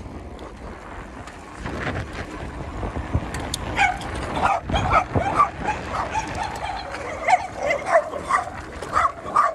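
A dog barking repeatedly, a string of short barks starting about four seconds in and going on to the end.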